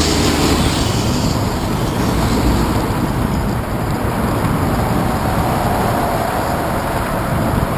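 Steady wind buffeting and tyre and road rumble from a moving bicycle, picked up by a handlebar-mounted camera.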